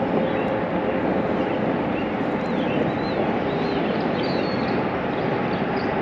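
A steady rushing noise, with small birds chirping faintly over it in repeated short chirps.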